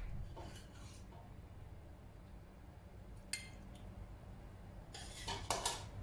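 A metal spoon clinking and scraping against a white ceramic serving dish as food is spooned in: a few light scrapes near the start, a sharp clink about three seconds in, and a quick run of clinks near the end.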